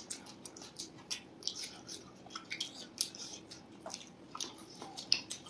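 Chewing and mouth sounds of people eating pizza and fried rice: a run of many irregular short clicks and smacks.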